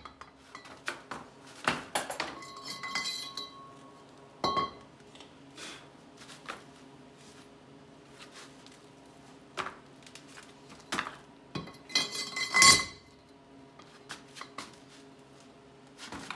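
Steel pipe and axle shaft clinking and clanking as they are handled and repositioned. There are scattered light metallic knocks, with two louder ringing clanks, about four seconds in and again about twelve seconds in.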